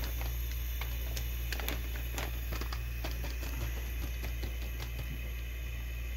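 Steady low hum with scattered light crinkles and ticks from a plastic packet of powder being handled over a plastic mixing bowl.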